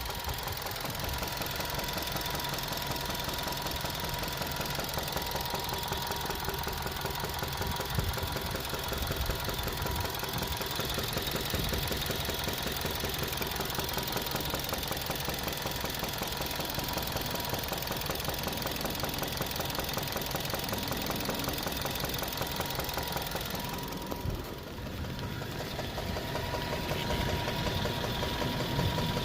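2013 Suzuki Swift Sport's 1.6-litre four-cylinder engine running with a rapid, steady knock, which the owner puts down to a worn connecting-rod bearing at about 100,000 miles.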